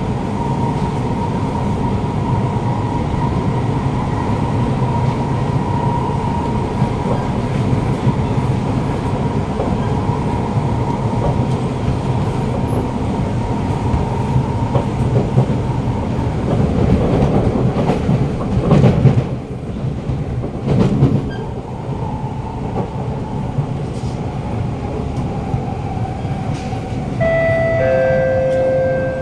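Interior running noise of a Siemens C651 metro train on elevated track: a steady rumble of wheels on rail under a traction-motor whine, with louder clatters about two-thirds of the way through. Later a motor tone falls in pitch as the train brakes; the regenerative braking is not at full power, so only the normal motor sound is heard rather than the 'double motor' tone. A short two-note chime sounds near the end.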